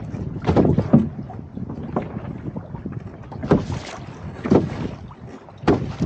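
Water splashing and lapping against a wooden canoe's hull as it moves through choppy water, in surges about every second or so, with wind rumbling on the microphone.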